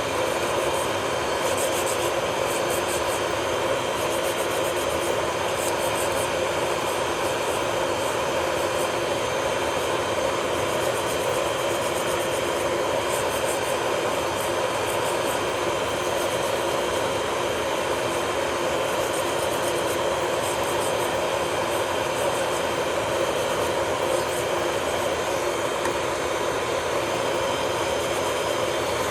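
Electric nail drill running steadily at high speed, a constant motor whine with faint light scratching as the bit works on the nail.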